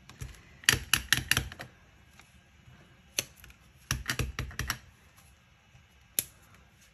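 Light sharp taps of a photopolymer stamp on a clear acrylic block being tapped onto an ink pad and pressed onto cardstock: two quick runs of about half a dozen taps, with single taps between them.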